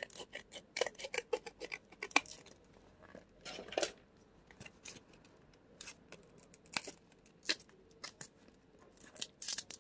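Scissors snipping at the packaging of a microSD card: an irregular run of sharp snips and clicks, with a louder cut about three and a half seconds in and a quicker flurry near the end.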